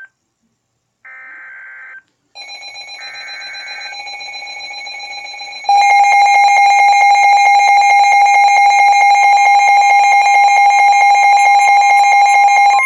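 Emergency Alert System alert: two short bursts of screeching digital header data about a second apart. Then a pulsing electronic alarm tone comes in about two seconds in, grows, and jumps to full loudness about six seconds in. It holds steady there as the attention signal that announces a warning.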